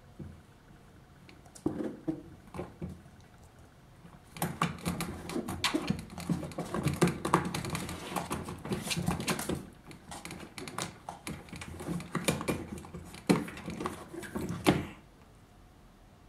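Wire door of a plastic pet carrier rattling and clicking as cats paw at it: a few scattered clicks at first, then a dense, rapid clatter for about ten seconds that stops suddenly near the end.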